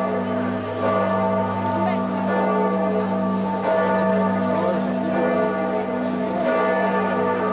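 Church bells of Giotto's Campanile ringing: new strokes every second or two, their ringing overlapping into one continuous sound of several steady tones.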